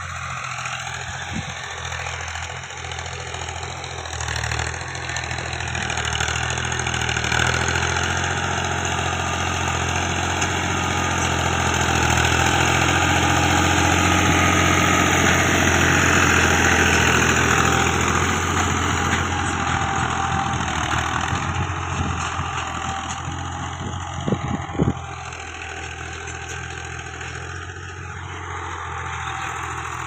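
Fiat Al-Ghazi tractor's diesel engine running steadily under load as it pulls a tine cultivator through ploughed soil. It grows louder as the tractor passes close by around the middle, then fades as it moves away. A couple of short knocks come near the end.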